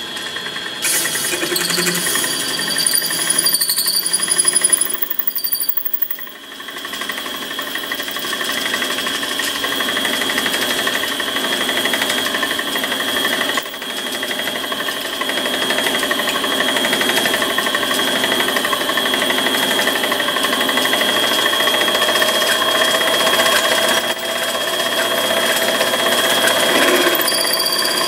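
Benchtop mini lathe running steadily while a drill bit in the tailstock chuck is fed into the spinning part, boring out a hole to the size for a pipe tap. The cutting sound dips briefly about six seconds in, then carries on.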